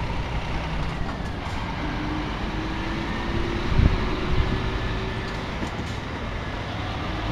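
Heavy diesel trucks, Scania tractor units, driving slowly past one after another with their engines running under light load. A brief low thump comes about four seconds in.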